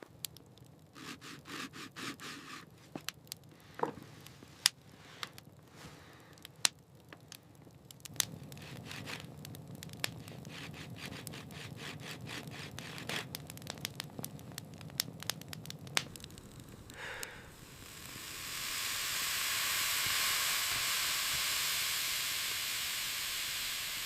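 Food being handled and prepared, with scattered sharp clicks and scraping, then a steady loud sizzle that sets in about three-quarters of the way through.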